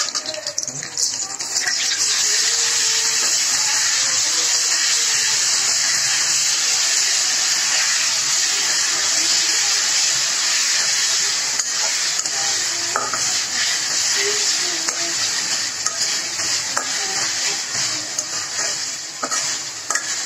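Sliced onions and whole spices frying in hot oil in a kadai, a steady sizzle that grows louder about two seconds in, with a metal spatula stirring and scraping against the pan.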